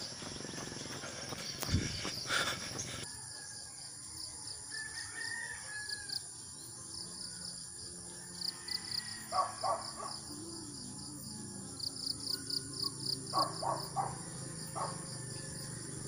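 Rural roadside ambience: insects chirping in quick pulsing runs, a rooster crowing, and clusters of short sharp taps in the second half. A thump with handling noise comes about two seconds in, as the phone is set down in the grass.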